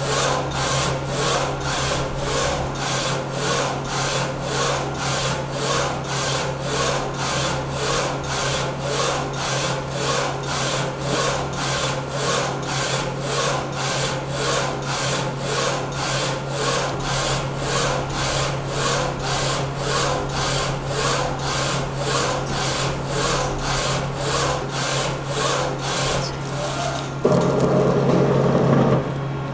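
WER E3055UV desktop UV flatbed printer printing: the print-head carriage shuttles back and forth, a rhythmic whir about twice a second over a steady low hum. Near the end the passes stop and a louder whir runs for about two seconds.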